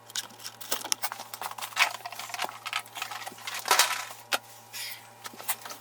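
Irregular light clicks and knocks, like things being handled, over a steady low electrical hum.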